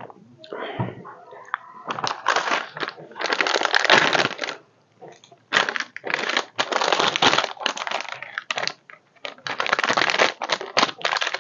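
Plastic snack packet crinkling and rustling in irregular bursts as it is handled and opened.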